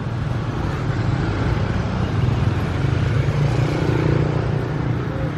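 Road traffic of cars and motorcycles running steadily past, with a faint pitched sound about four seconds in.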